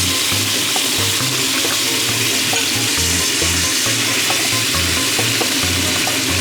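Seasoned meat frying in a pan, a steady sizzle, with background music and its low bass notes underneath.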